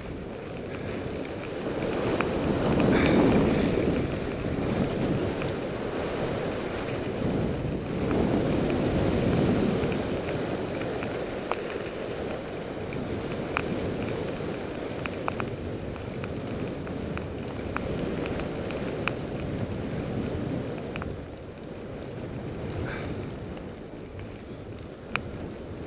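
Wind rushing over the camera microphone during a fast ski run, rising and falling in swells, with skis sliding on snow and a few faint ticks.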